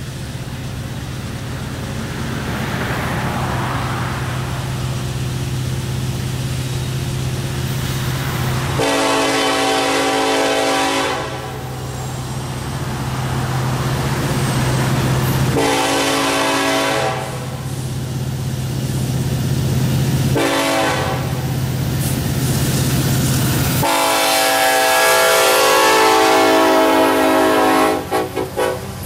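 Approaching diesel freight locomotive sounding its multi-chime air horn in the grade-crossing pattern of long, long, short, long, over the steady low drone of its engine. The last long blast ends as the locomotives pass close by.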